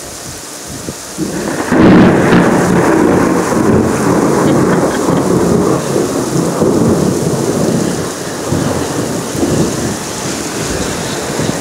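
Thunder breaks about a second and a half in and rolls on as a long low rumble for several seconds, easing off near the end, over steady heavy rain.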